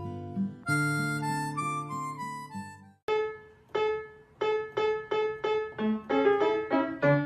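Background music: held reedy chords stop abruptly about three seconds in. A piano-like tune of separate struck notes follows, its notes coming faster near the end.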